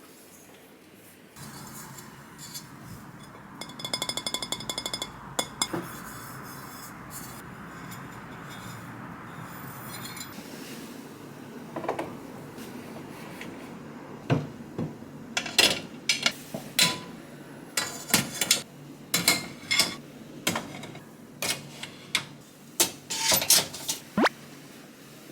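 Ceramic plates and dishes knocking and clinking against each other as they are unpacked, in many separate sharp clinks. A steady hiss fills the first half.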